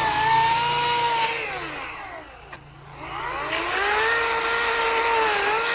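EGO 18-inch 56-volt battery chainsaw running with a high, steady electric whine. About a second in it winds down as the trigger is let off, a click sounds, and it spins back up to full speed.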